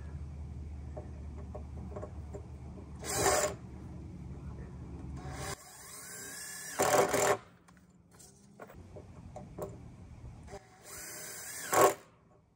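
Power drill running in three short bursts, the middle one longer, its motor pitch rising as it spins up before the loudest part.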